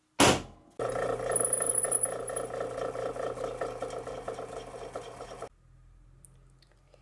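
One sharp strike on a metal punch marking a copper bar, then a drill press running as its bit cuts into the copper bar, a steady motor hum under a rough cutting chatter for about five seconds that cuts off suddenly.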